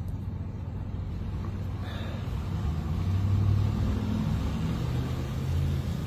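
Pickup truck fitted as a brine sprayer driving slowly toward the listener, a low engine hum that grows louder about halfway through.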